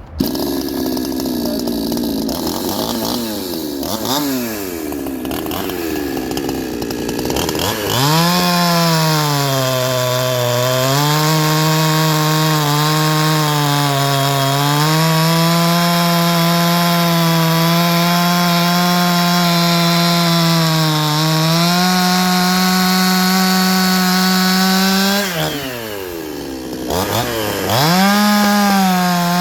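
Heavily ported Chinese 46 cc two-stroke chainsaw running unevenly at lower revs, then revving up sharply about eight seconds in and holding high revs that dip slightly under load as it cuts ironbark hardwood. Near the end the revs drop briefly, then climb again.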